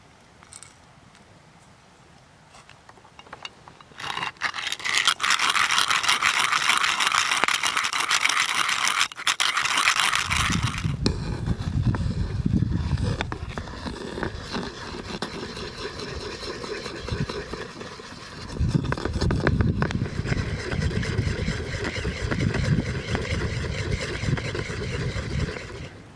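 About four seconds in comes a dry rasping scrape lasting around six seconds. Then a wooden paddle stirs cream in a clay pot, sloshing the liquid and rubbing against the pot, with a short lull midway.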